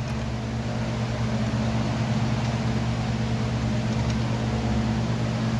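Steady low mechanical hum of an idling engine, even in level with no change.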